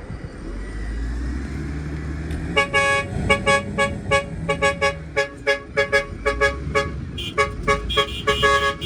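Vehicle horn sounded in a rapid string of short honks, about three a second, starting nearly three seconds in, with a second, higher-pitched horn joining near the end. Underneath, a heavy machine's engine runs with a low, steady rumble.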